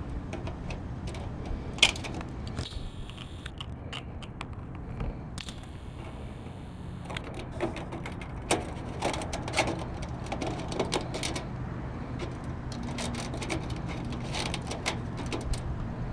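Aviation snips cutting a thin sheet-metal splice plate, then sheet metal and mesh gutter screen being handled and pressed into place. The result is an uneven series of sharp clicks, snips and light metallic rattles, with the loudest click about two seconds in and thicker runs of clicks later on.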